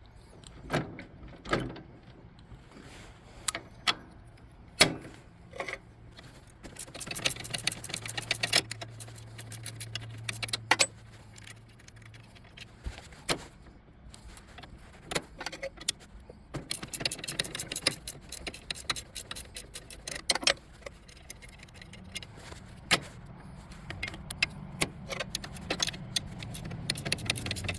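Half-inch ratcheting wrench clicking in quick runs as bolts are backed out, with scattered clinks and knocks of metal tools.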